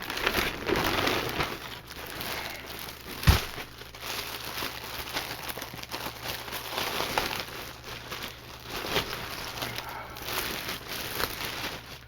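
Packaging being torn open and crinkled by hand, an irregular rustling and crackling, with one sharp thump about three seconds in.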